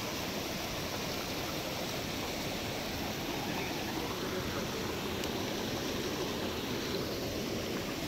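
Mountain stream rushing over rocks: a steady wash of running water.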